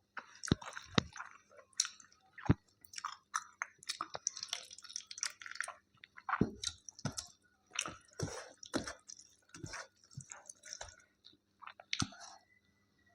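A person chewing and eating food: an irregular run of wet smacking and squishy mouth sounds with a few sharper crunchy bites.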